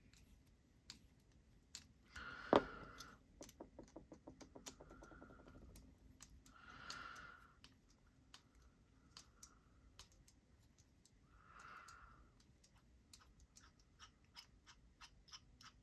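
Faint small metal clicks and ticks of a screw being driven out of a folding knife's handle with a small Torx driver, with one sharper click about two and a half seconds in followed by a quick run of clicks.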